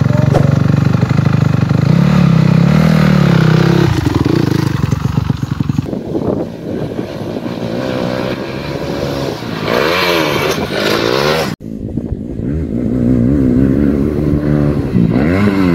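Motocross bike engine revving hard under acceleration, its pitch rising and falling with throttle and gear changes. The sound breaks off for an instant about two-thirds of the way through, then carries on.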